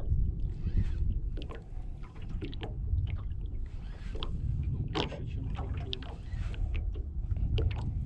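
Wind rumbling on the microphone over small waves lapping at a small boat's hull, with scattered light knocks and ticks at irregular intervals.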